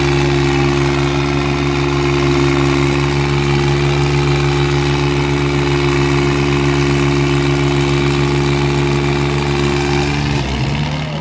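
Diesel tractor engines of a New Holland 3600-2 and another tractor running flat out at a steady pitch while chained back to back, straining under full load in a tug-of-war pull. About ten and a half seconds in the steady engine note breaks off and drops away.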